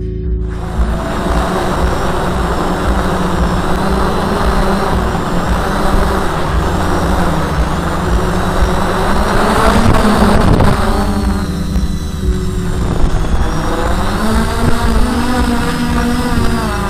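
Hexacopter's six SunnySky 2212 brushless motors and 10-inch props in flight, heard from the on-board camera: a loud, steady rushing drone with wind noise. It swells loudest about ten seconds in; after that the motor whine shifts up and down in pitch as the craft descends toward the ground.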